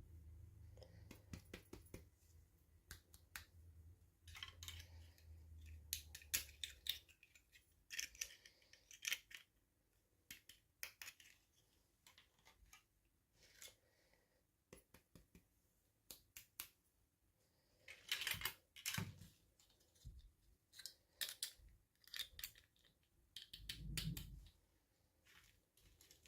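Quiet, irregular clicks, taps and short rustles of small plastic toy packaging being handled and opened, with louder crinkly bursts about 8, 18 and 24 seconds in.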